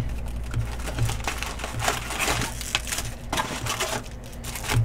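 Foil-wrapped trading card packs crinkling and rustling as they are pulled out of an opened cardboard box and stacked, with a few light taps.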